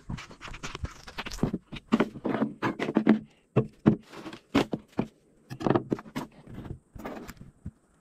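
Footsteps followed by irregular knocks and scrapes as a plastic bowl and other picnic things are handled and set down on a wooden table.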